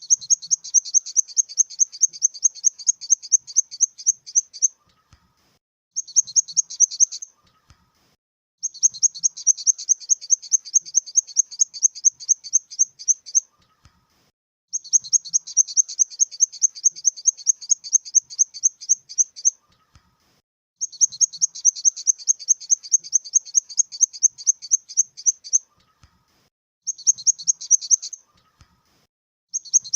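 Grasshopper stridulating: a high, rapidly pulsed buzz at about six pulses a second, in phrases of one to five seconds separated by pauses of about a second.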